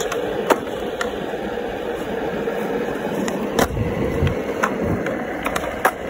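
Skateboard wheels rolling on concrete with a steady rumble, with several short, sharp clacks from skateboards, the loudest about half a second in, past the middle, and near the end.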